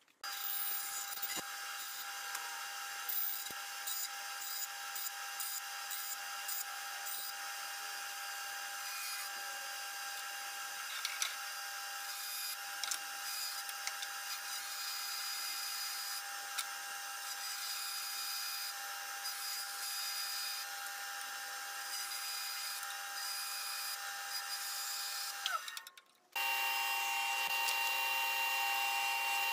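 Band saw running steadily with a whine and light clicks as it cuts small wooden angle blocks. About 26 seconds in it cuts off abruptly, and after a brief gap a table saw's steady running takes over with a different set of tones.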